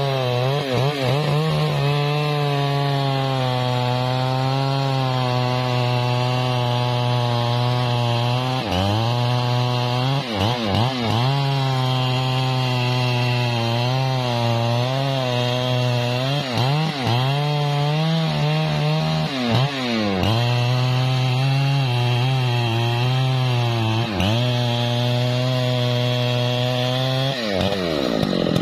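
Husqvarna 3120 XP chainsaw's large two-stroke engine running at high revs while cutting a trembesi log; its pitch dips briefly several times as the chain takes load, and the revs climb sharply near the end.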